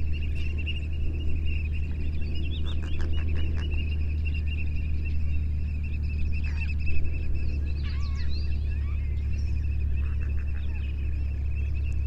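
Outdoor bird ambience: assorted short chirps and a few honk-like calls, over a steady high buzz and a steady low rumble.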